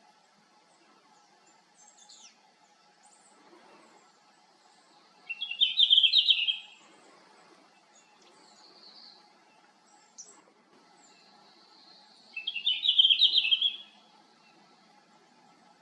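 Male red-flanked bluetail singing: two short, quick warbling phrases about seven seconds apart, with faint high chirps in between.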